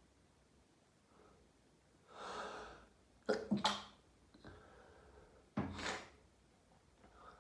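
A person in a sneezing fit: a gasping in-breath, then a sharp double sneeze, and about two seconds later another sneeze.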